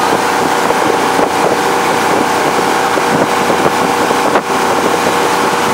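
Tow boat's engine running steadily at speed, mixed with rushing water from the wake and wind buffeting the microphone.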